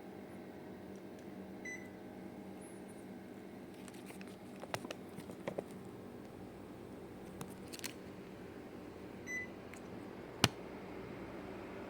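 Panasonic CS-XN5RKJ split air conditioner running with a steady hum, giving a short beep twice, about 2 s in and again near 9 s. A few faint clicks come midway, and a single sharp click about 10 s in is the loudest sound.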